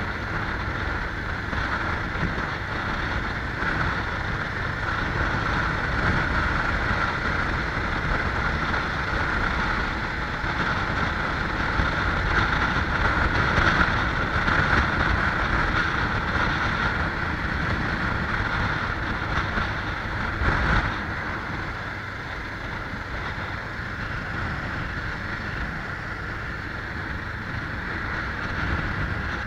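A vehicle running on the move, with steady engine and road noise and wind buffeting the microphone.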